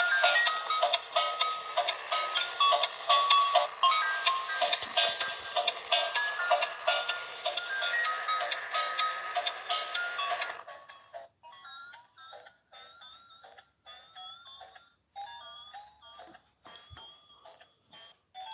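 Battery-powered bump-and-go toy car playing a tinny electronic tune through its small speaker. About ten seconds in the tune stops abruptly, and quieter electronic beeps and chirps with a few clicks follow.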